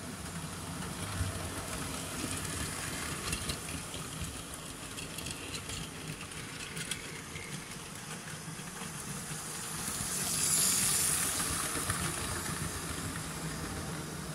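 Model railway trains running on the layout: a steady low hum of the locomotive motors with scattered clicks from the wheels on the track, and a hiss that swells about ten seconds in.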